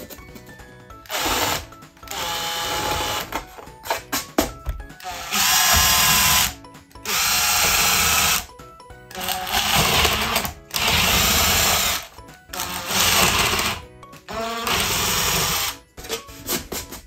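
Cordless power drill boring holes through a plywood board into a wooden block behind it, in about eight short runs of a second or so each, the motor whine spinning up with each trigger pull. Background music plays faintly between the runs.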